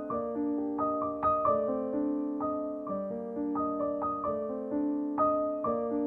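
Background piano music: a slow, gentle melody of struck notes over sustained chords.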